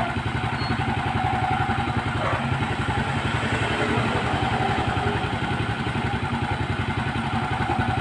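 Motorcycle engine idling steadily, with a fast, even beat of firing pulses.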